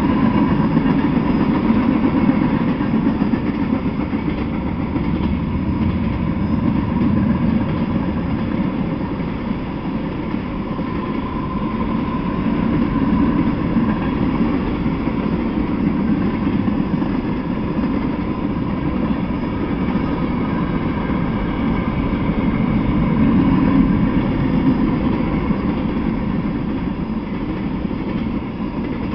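Freight train of tank cars rolling past: a steady rolling noise of steel wheels on the rails that swells and eases a little as the cars go by.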